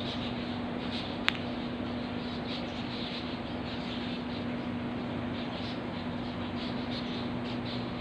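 Birds chirping faintly in the trees over a steady low hum and a hiss of background noise, with one sharp click about a second in.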